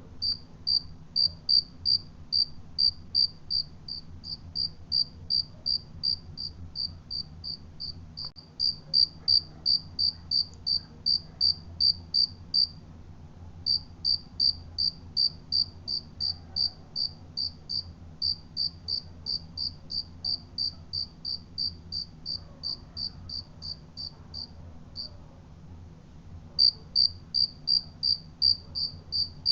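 A cricket chirping in a steady, even rhythm of about two to three high chirps a second. The chirping stops briefly twice, once near the middle and once near the end. A faint low hum runs underneath.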